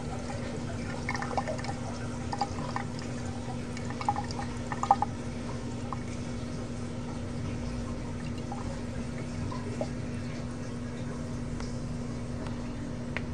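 Thin stream of water running from a two-handle bathroom faucet into the sink basin, with a hand in the stream. A few brief splashes in the first five seconds, over a steady hum.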